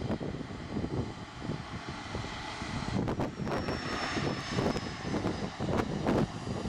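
Jet engines running at low power over a steady rumble, with a thin high whine that sinks slowly in pitch through the middle: a regional jet with rear-mounted turbofans taxiing.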